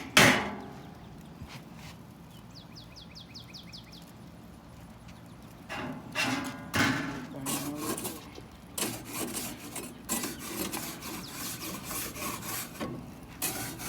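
A sharp metal clank just after the start as the grill rack is moved. From about six seconds in come repeated rough scraping strokes of metal on the charcoal grill.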